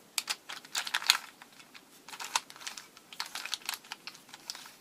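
Plastic pieces of a WitEden 2x3x4 camouflage puzzle cube clicking and clacking as its layers are twisted by hand, in several quick clusters of clicks.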